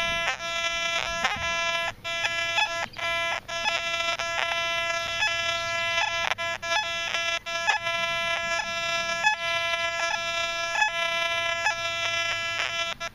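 Metal detector with a 6x10 DD search coil giving a continuous buzzing tone, broken every second or so by short dropouts and clicks as the coil sweeps. The tone answers iron and pull-tab-range targets in the ground.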